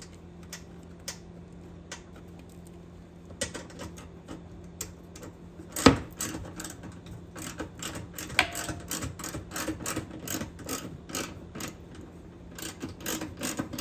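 Ratchet with an 8 mm socket on an extension clicking in quick runs as a bumper bolt is driven home, with one sharp knock about six seconds in.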